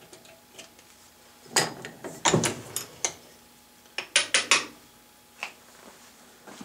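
Sharp metal clinks and rattles as a tap and T-handle tap wrench are taken off a freshly tapped aluminium V-pulley and the pulley is lifted out of a bench vise. The clicks come in a few quick clusters, the loudest about two and four seconds in.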